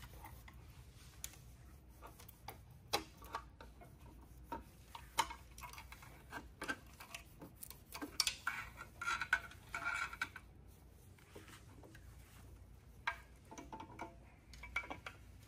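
Scattered light metallic clicks and clinks of engine parts being handled as the timing chain and front cover come off a Nissan SR20DET engine, with a busier run of chain-link jangling and clinking about eight to ten seconds in.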